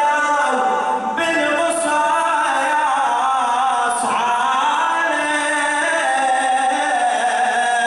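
A male radood chanting a Shia Muharram elegy in Arabic, unaccompanied, his voice winding and holding long notes.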